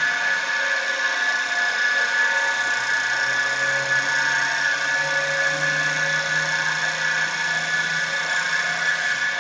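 CNC wood turning-milling machine for balusters running, a steady high whine over a lower hum that grows stronger about two and a half seconds in.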